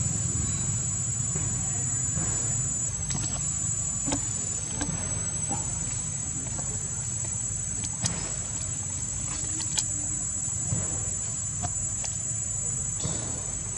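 Insects trilling steadily at a high pitch, over a steady low rumble, with a few faint clicks.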